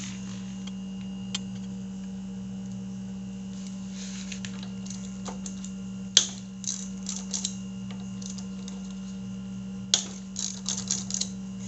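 Sharp metallic clicks and clinks of a hand tool working the hex bolts on a motorcycle's front brake caliper, the loudest about six seconds in and clusters of quicker clicks near the middle and the end, over a steady low hum.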